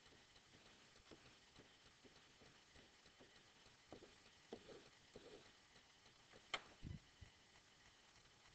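Near silence with a few faint taps and clicks of a stylus writing on a digital pen screen, and one sharper click with a low thump about six and a half seconds in.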